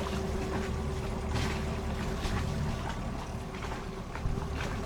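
A boat's engine running steadily: a low rumble with a steady hum that fades near the end.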